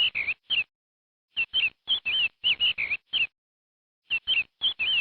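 Chicks peeping: quick high chirps that rise and fall. A short phrase of about eight chirps repeats every two to three seconds with silent gaps between, as a looped chicken sound effect.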